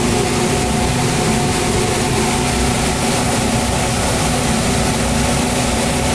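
A fan running: a steady whirring hum with several steady tones over a wide hiss, unchanging throughout.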